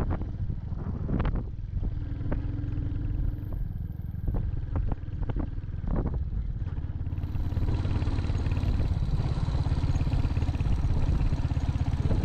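Royal Enfield Hunter 350's single-cylinder engine running while riding, with sharp knocks and clatter over rough road in the first half. From about seven seconds in, a steady hiss rises over the engine.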